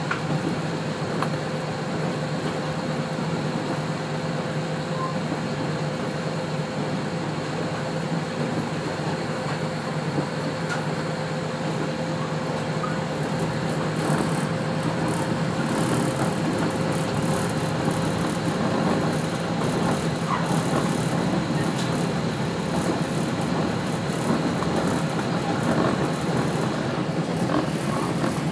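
Kashima Rinkai Railway 6000-series diesel railcar under way, heard from inside the passenger cabin: a steady drone of the engine and wheels on the rails. From about halfway more rattly running noise joins in.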